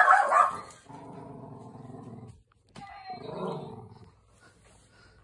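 Shetland sheepdog giving one loud bark, then growling low for about a second and a half, and growling again about three seconds in.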